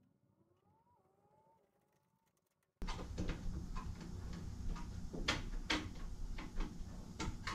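Near silence at first, then, about three seconds in, room noise with scattered sharp clicks and knocks as hands handle and fit the front bumper and its mounting hardware.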